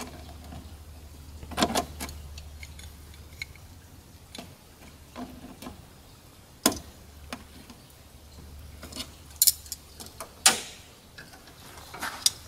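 Irregular clicks and clinks of hand tools, a screwdriver and a wrench, against hose clamps and metal parts in a car engine bay while a coolant hose is fitted at the thermostat housing. About a dozen sharp ticks come scattered a second or so apart over a faint low hum.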